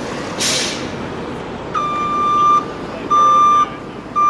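New York City bus: a short hiss of released air about half a second in, then three loud electronic warning beeps of one steady pitch, each about half a second to a second long, over the steady running noise of the bus and traffic.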